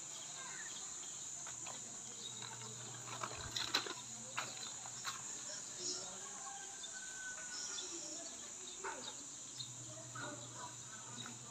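Quiet outdoor ambience: a steady high-pitched insect drone, with a few faint clicks and knocks around the middle.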